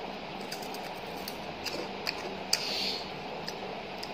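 Crispy fried papad being bitten and chewed close to the microphone: irregular sharp crunches and crackles, the loudest about two and a half seconds in, over a steady background noise.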